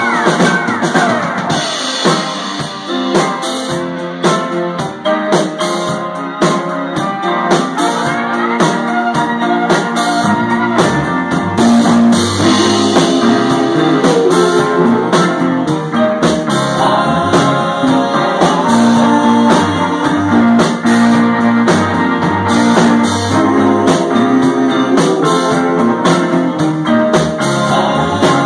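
Live rock band playing, with drum kit and guitar; sliding guitar notes early on, and a low bass line filling in about ten seconds in.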